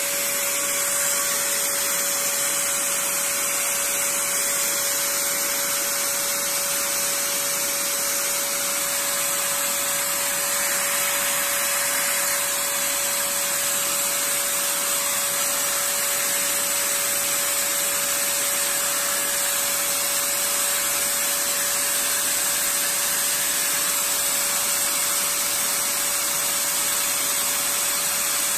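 Steady blower-like hiss with a constant mid-pitched hum running under it, unchanging throughout.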